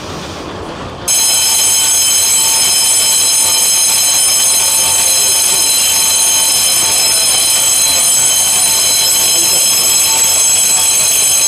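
A station departure bell starts ringing about a second in and then rings on loud and steady as one continuous electric 'jiririri' trill. It is the platform's signal that the train is about to depart, and it is a kind of bell now becoming rare in Japan.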